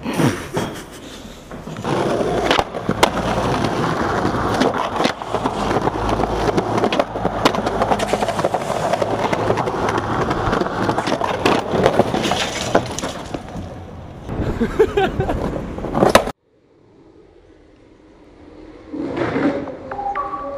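Skateboard rolling on concrete, with the sharp clacks of the board being popped and landed. The sound cuts off suddenly about sixteen seconds in, and a few notes of music begin near the end.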